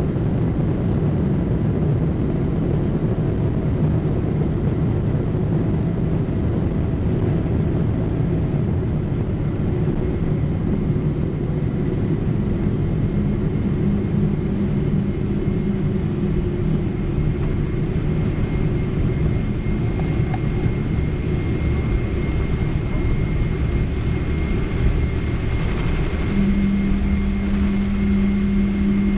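Steady low rumble of a Boeing 777-300ER's engines and airframe heard from inside the passenger cabin, with a low steady hum that comes in about halfway through and again, louder, near the end.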